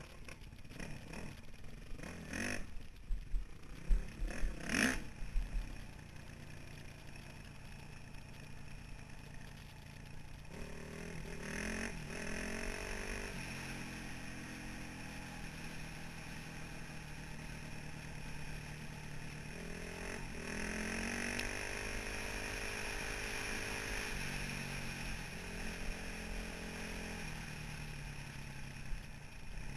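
2003 Honda CRF450R's single-cylinder four-stroke engine running on the trail, the revs rising and falling with the throttle and climbing sharply twice, about eleven and twenty seconds in. Loud irregular knocks and clatter in the first several seconds.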